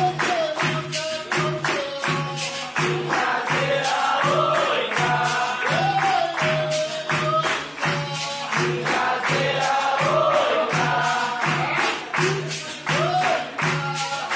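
Background capoeira-style music: voices singing together over a steady percussion beat of about two strokes a second, with tambourine jingles.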